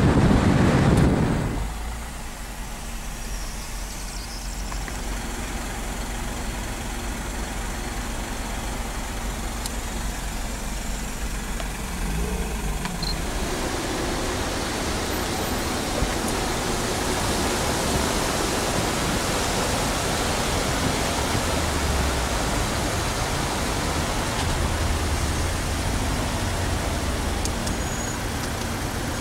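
Wind rushing over the microphone for the first couple of seconds, then a steady noise of car traffic and engines from a long queue of slow or stopped cars in a motorway jam.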